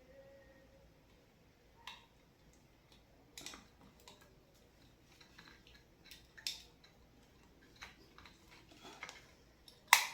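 Scattered small clicks and taps of a plastic light switch and its wires being handled as the wires are pushed into their slots, with a sharper, louder click near the end.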